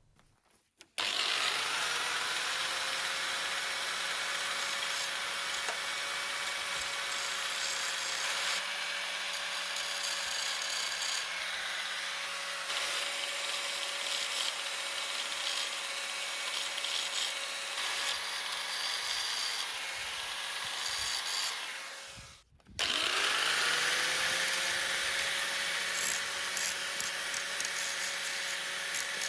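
Angle grinder grinding steel: the motor spins up, runs steadily with a rough scraping hiss from the disc on the metal, is switched off and winds down about 22 seconds in, then is started again and spins back up to grind on.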